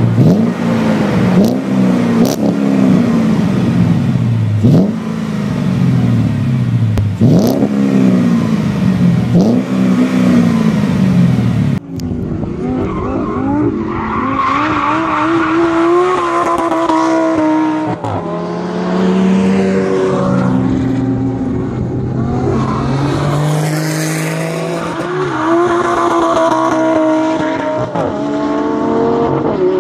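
Mercedes-Benz E55 AMG V8 with a Magnaflow exhaust, revved repeatedly at the tailpipe, each rev falling back. About twelve seconds in the sound cuts to a car accelerating hard on a race track, its engine climbing through several gear changes.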